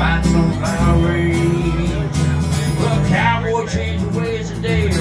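A man singing a country-style song while strumming an acoustic guitar, performed live.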